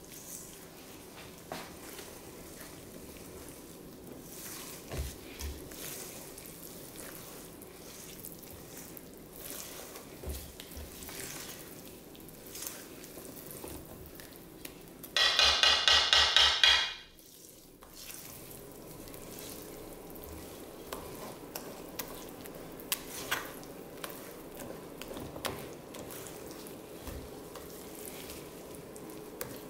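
Silicone-coated whisk stirring thick cake batter in a stainless steel bowl, with soft scraping and small clinks against the bowl. About halfway through, a loud rapid rattling burst lasts about two seconds, then stops suddenly.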